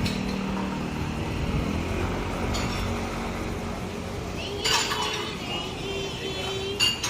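Tableware clinking twice over steady background noise: a ringing clink about two-thirds of the way in and another near the end.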